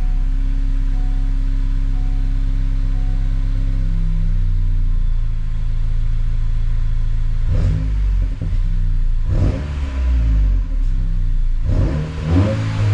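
Honda Civic Si's 1.5-litre turbo four-cylinder running through a MAPerformance race exhaust: a steady idle, then a few short revs in the second half.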